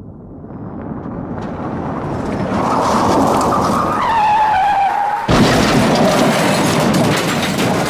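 Car sound effect: a car approaching with a rising roar and tyres screeching in a falling squeal, then a sudden harsh noise about five seconds in.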